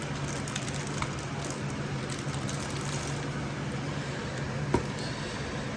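Faint handling of a cardboard and plastic product box, with light rustles and a sharp click near the end, over a steady low hum.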